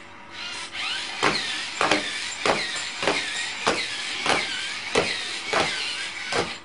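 Small robot's motors whirring in a regular cycle, with a sharp click about every 0.6 s, like a toy robot stepping along; it starts half a second in and cuts off at the end.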